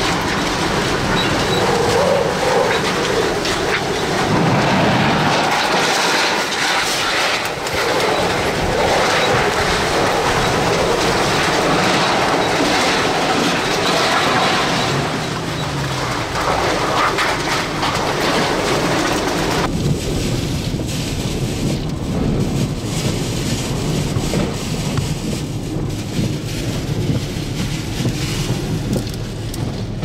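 Hurricane-force eyewall winds howling, with rain and flying debris and loose sheet metal clattering and banging throughout. About two-thirds of the way in the sound turns duller, with less hiss.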